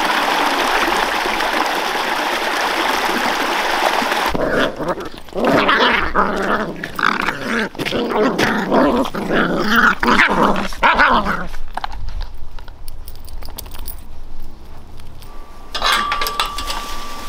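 A shallow stream running over rocks, then two beagle puppies play-fighting, growling and yipping for several seconds. A few sharp clicks near the end.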